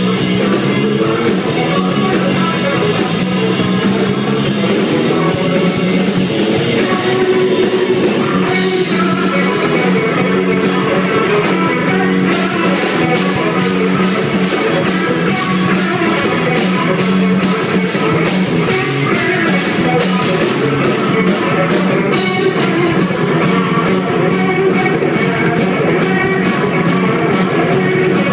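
Live rock band jamming: two electric guitars, electric bass and a drum kit playing together at a steady loud level, with an even run of cymbal strokes over the beat.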